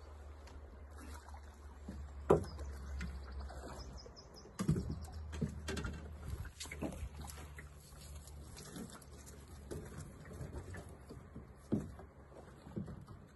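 Scattered knocks, taps and clicks from rod, net and gear in a metal drift boat as a trout is played and netted, over a low steady rumble. A sharp knock about two seconds in is the loudest.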